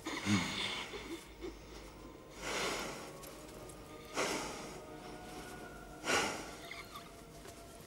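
A person breathing heavily in ragged gasps, a loud rush of breath about every two seconds.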